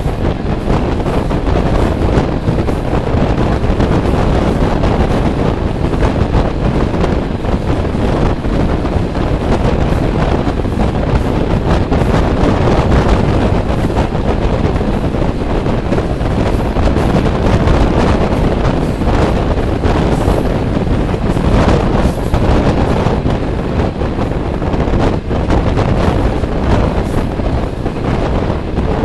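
Steady wind rushing over the microphone at the open window of a moving passenger train, mixed with the train's running noise on the rails.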